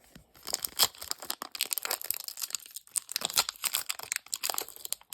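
Foil Pokémon TCG booster pack wrapper crinkling and crackling in the hands as it is torn open, irregular crackles throughout.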